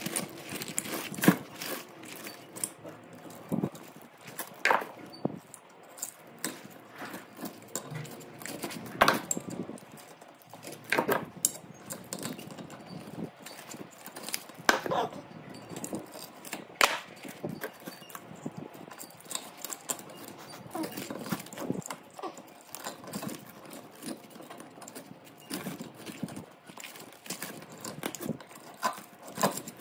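Irregular metal knocks and clatter, sharp strikes every second or two with some much louder than others, from tools working the old copper winding out of a burnt three-phase motor's stator.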